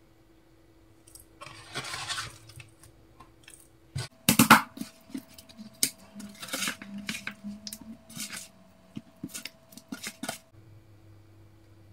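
A spoon tossing spice-coated fish pieces in a metal mixing bowl, clinking and scraping against the bowl with wet squishing of the coated fish. Faint at first, then a busy run of clinks and scrapes from about four seconds in, loudest just after it starts, stopping suddenly near the end.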